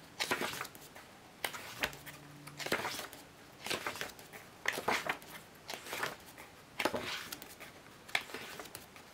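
Pages of a thick photo book with glossy paper being turned one after another, a papery swish or flap about once a second.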